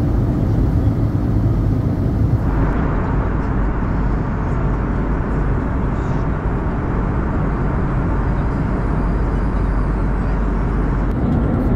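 Steady cabin noise of an Airbus A321neo in cruise: a constant roar of airflow and its CFM LEAP-1A engines heard from inside the cabin by the wing. The roar turns a little brighter about two and a half seconds in.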